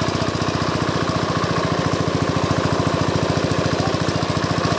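Engine of a pump draining a pond, running steadily with a rapid, even beat.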